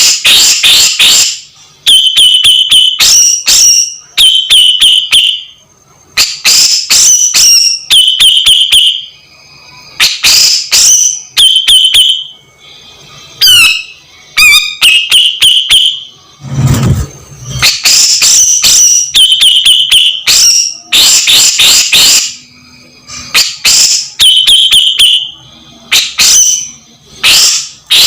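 Grey-cheeked bulbul (cucak jenggot) calling loudly in quick repeated bursts, harsh rasping scolding notes mixed with clear whistled notes, a new burst every one to two seconds.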